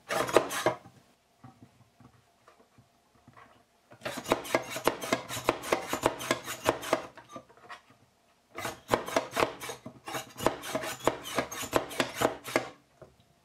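Hand-operated plastic plunger cherry pitter worked quickly while pitting sour cherries: a fast run of clicks and clacks. It comes in two runs of several seconds each, with a short pause between them and a brief burst at the start.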